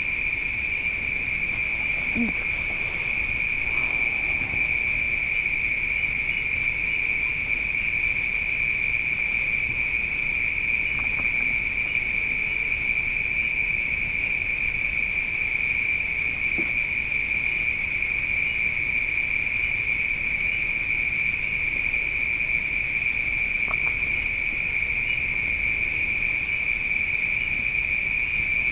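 Steady chorus of night insects, crickets trilling without pause at two high pitches, with a few faint small knocks.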